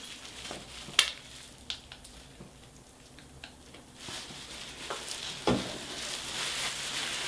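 Crackly rustling of dye-soaked locs being handled and parted with gloved hands, with a few sharp clicks; the rustle grows louder about halfway through.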